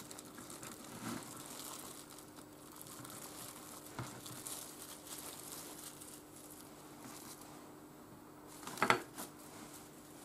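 Plastic cling film crinkling faintly as it is handled and wrapped by hand, with a single click about four seconds in and a louder crinkle near the end.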